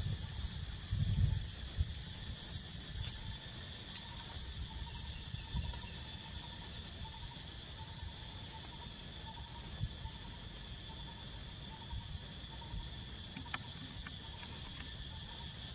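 Steady high-pitched insect chorus, with a pulsing trill running through it. A few sharp clicks sound about three, four and thirteen seconds in, and low rumbling is strongest in the first two seconds.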